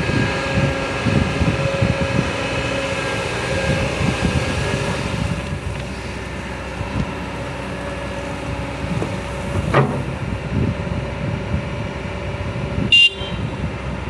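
Motor vehicle engines running, with steady horn-like tones over the first five seconds or so. A short sharp knock comes near the end.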